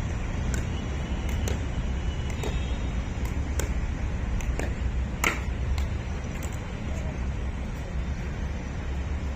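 Pickleball paddles striking a plastic pickleball in a quick volley exchange: sharp pops at an uneven pace, about one or two a second, over a steady low rumble.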